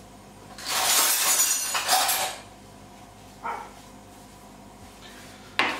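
Kitchen handling noises: a loud noisy stretch of under two seconds about a second in, a short clatter halfway through, and a sharp clink near the end.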